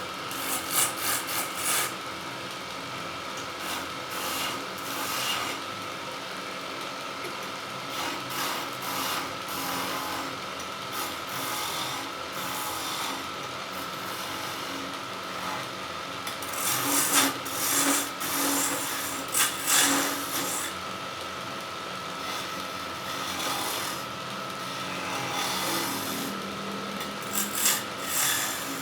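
Wood lathe running with a steady whine while a turning tool cuts the spinning wood in several scraping bursts, the loudest a cluster a little past the middle.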